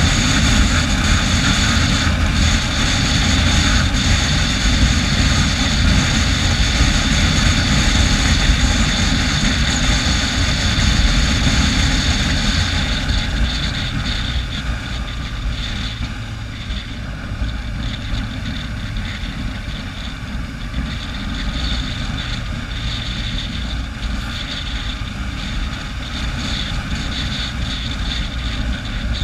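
Steady wind rush on the microphone over the drone of a moving vehicle's engine while riding along a road. It eases off a little about halfway through.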